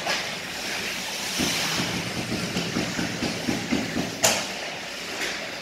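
Ice hockey play: skates scraping across the ice and sticks clattering in a rink, with one sharp crack about four seconds in.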